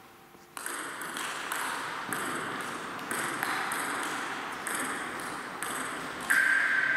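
Table tennis rally: the celluloid ball clicking off rackets and table about twice a second, ringing in a large hall. Near the end a loud, steady held tone comes in over the hits.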